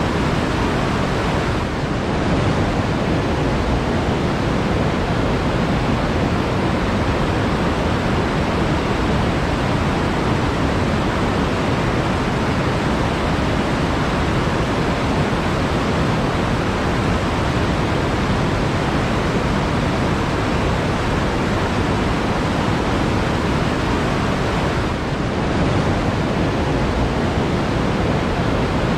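Flowing water rushing steadily, a continuous even hiss with no distinct splashes.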